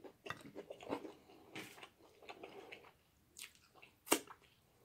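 Close-miked open-mouth chewing and lip smacking while eating fried chicken, in irregular wet clicks and smacks. One sharp smack about four seconds in is the loudest.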